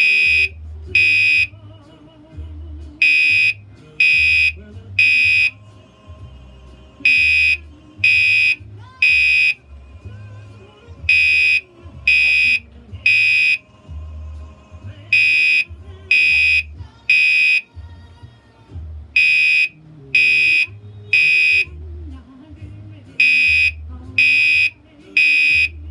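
Gentex Commander 3 fire alarm horn sounding in the temporal-3 evacuation pattern: three loud, high-pitched beeps about a second apart, then a pause, the group repeating about every four seconds.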